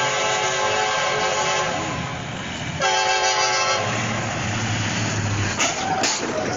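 A horn blowing in two long blasts over a steady rushing noise: the first ends about a second and a half in, and the second starts about three seconds in and lasts about a second.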